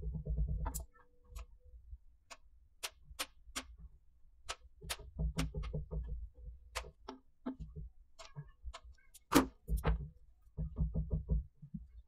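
Irregular sharp clicks and low handling rubs from splicing an ethernet cable by hand: small copper wires being twisted together and cut and stripped with a hand wire stripper. The loudest click comes a little after nine seconds in.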